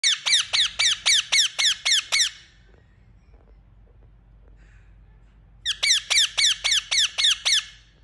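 Rose-ringed parakeet (Indian ringneck) chirping loudly in rapid runs of shrill calls, about four a second, each falling in pitch. There are two runs of about ten calls each, with a pause of about three seconds between them.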